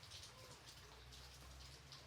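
Light rain falling, faint and gentle, with scattered individual drops over a steady low hum.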